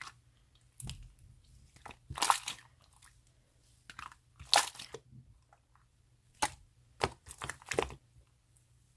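Slime being squeezed and pressed by hand, in several short bursts of crackling, squishing sounds with quiet pauses between them. The loudest bursts come about two and four and a half seconds in.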